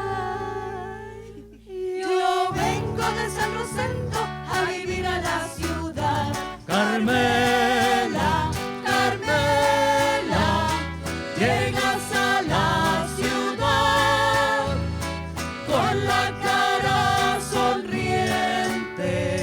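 A Chilean folk ensemble playing a vals, with voices singing together over a steady strummed accompaniment. The music breaks off briefly about two seconds in and then carries on.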